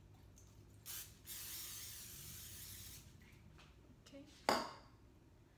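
Aerosol cooking-oil spray can hissing: a short spurt about a second in, then a steady spray for about two seconds. A single sharp knock follows near the end, the can being set down on the counter.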